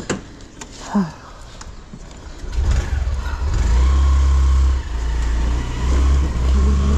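A motor vehicle moving off: a heavy low rumble rises about two and a half seconds in and keeps on, with a faint steady whine above it.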